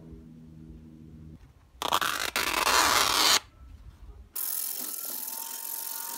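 Abrasive cloth rubbed by hand over the rusty steel of an Estwing claw hammer, sanding it to 120 grit: a scratchy hiss in two stretches of one to two seconds each, the first louder. A faint low hum comes before the first stretch.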